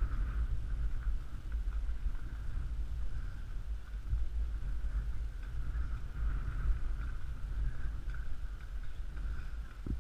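Wind buffeting the microphone: a steady low rumble with a faint hiss above it, and one soft knock near the end.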